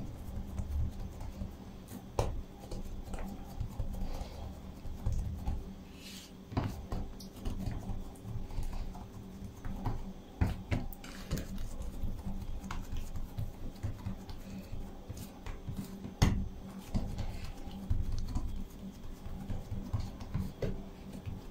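Fingertips patting and pressing soft yeast dough balls flat on a countertop: irregular soft pats and taps, with one sharper knock about three-quarters of the way through, over a faint steady hum.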